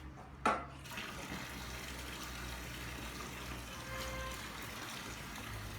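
A sharp click, then water starts running in a steady, even rush that continues to the end.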